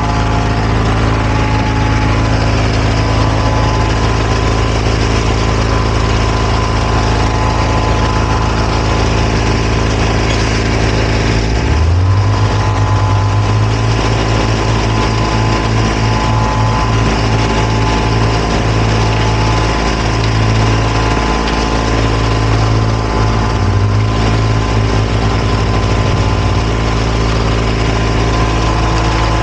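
Engines or motors running steadily with a layered hum of several steady tones. About twelve seconds in, a low drone brightens and begins to waver and pulse.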